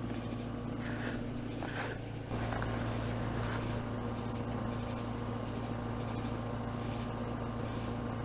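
Steady low mechanical hum that steps up slightly about two seconds in, with a few faint knocks in the first two seconds.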